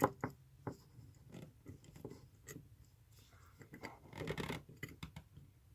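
Small metal parts of a tattoo machine being handled as the coils are fitted to the frame: scattered light clicks and taps, then a short scraping, rubbing patch about four seconds in.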